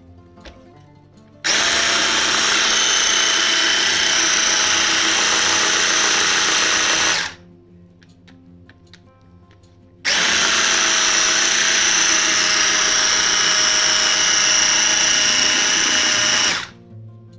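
Electric hand mixer beating cake batter in a bowl: it runs with a steady high whir for about six seconds, stops, then runs again for about six seconds more. Soft background music plays in the gap between the two runs.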